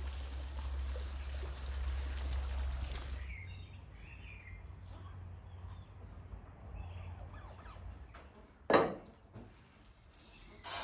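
Water trickling steadily for about three seconds. It then gives way to quieter garden ambience with faint birdsong. About nine seconds in comes one loud, short sound, followed by a smaller one.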